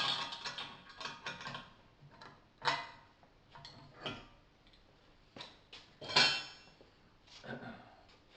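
Metal clinks, clicks and knocks from the exhaust blow kit's clamps being undone and pulled off a two-stroke exhaust pipe: about seven separate strokes, some with a short metallic ring, the loudest about six seconds in.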